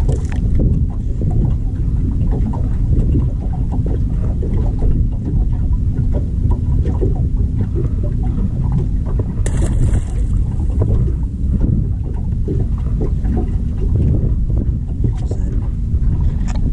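Wind buffeting the microphone, a heavy, unsteady low rumble, with a brief high squeak about halfway through.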